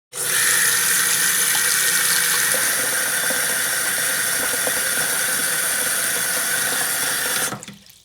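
Water running from a tap into a sink at full flow, a steady gush with a faint whistling tone from the pipes, shut off sharply near the end.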